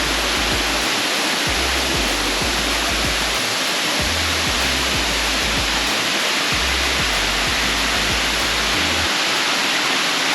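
El Limón waterfall's steady roar of falling water, loud throughout, with low bass notes of background music under it that stop about nine seconds in.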